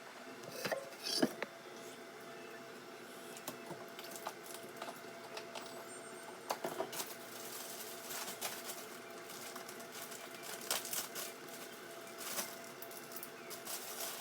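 Scattered light clicks, knocks and rustles of household items being handled, with a steady faint hum underneath.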